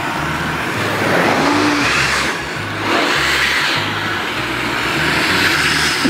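Vacuum cleaner running with its hose sealed into a plastic rubbish bag, drawing the air out so the bag clings tight; the suction noise swells and eases a few times.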